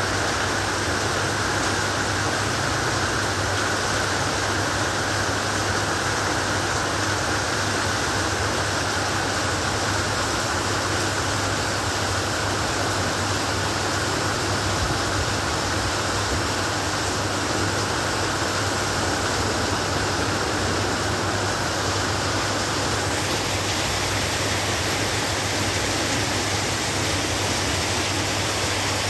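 Heavy monsoon downpour: a steady, dense hiss of rain.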